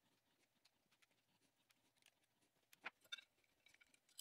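Near silence with a few faint clicks of pliers working the metal mounting ears of an electrical outlet, the sharpest two about three seconds in.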